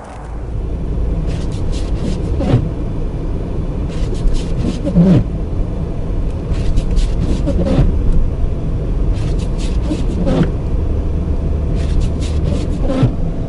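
Vehicle cabin on a snow-covered road: steady engine and road rumble. The windshield wipers sweep five times, about every two and a half seconds, each pass a short sliding squeak with a patter of clicks.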